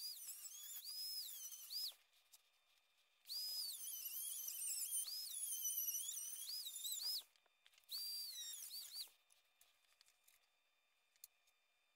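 Dremel rotary tool whining at high pitch as its bit cuts out the corners of a hole in a sheet-metal enclosure. The pitch dips and recovers again and again as the bit bears into the metal. It stops about two seconds in, runs again from about three to seven seconds, and once more briefly around eight seconds.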